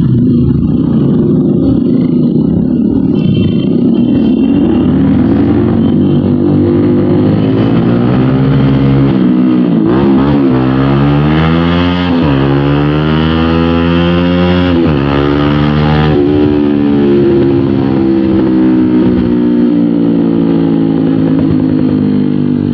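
Bajaj Pulsar NS200's single-cylinder engine running through an aftermarket SC Project slip-on exhaust while riding in traffic. The revs climb and drop several times through the middle as it pulls away through the gears, then settle into a steadier cruise.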